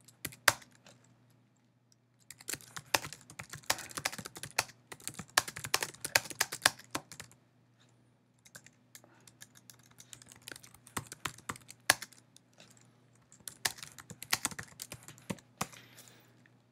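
Typing on a computer keyboard: three runs of quick keystrokes with short pauses between them, over a faint steady hum.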